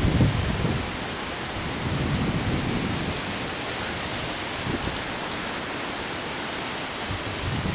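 Heavy thunderstorm rain falling steadily, with low rumbles of thunder right at the start and again about two seconds in.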